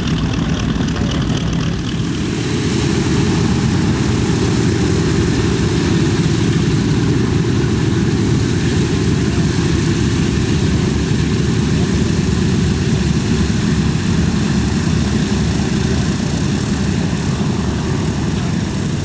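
Boeing B-17G bomber's four Wright R-1820 Cyclone radial engines and propellers running, a steady, loud, low drone that grows a little louder about two seconds in.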